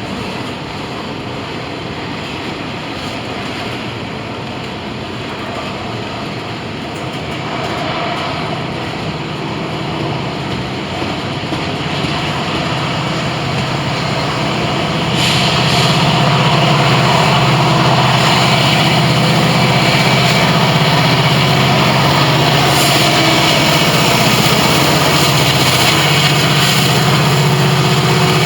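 Diesel freight-train locomotives running close by. The sound grows louder over the first half, jumps about halfway through, and then holds steady with a strong low engine drone.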